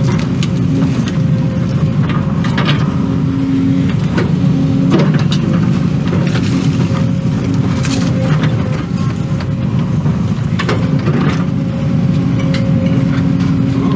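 Excavator running as it digs: a steady diesel drone with a pitched hum that comes and goes, and occasional sharp knocks.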